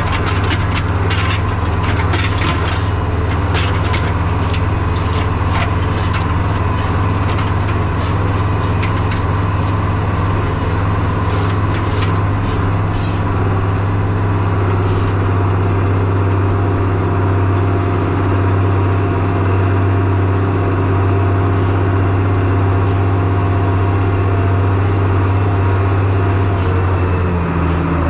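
Diesel engine of corn-chopping farm machinery running steadily under load, with a scatter of sharp ticks and knocks through the first half. Near the end the engine note changes and begins to pulse.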